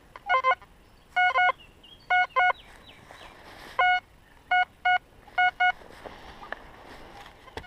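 XP Deus metal detector giving target tones: about a dozen short electronic beeps, mostly in pairs as the coil is swept back and forth over a target. The first pair is lower in pitch than the rest, and one beep about four seconds in is held a little longer.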